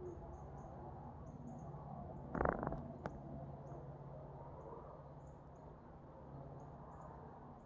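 Quiet woodland sound: faint, short high-pitched chirps recurring every half second or so over a low steady hum. About two and a half seconds in comes a brief louder rustle or crunch, followed by a single sharp click.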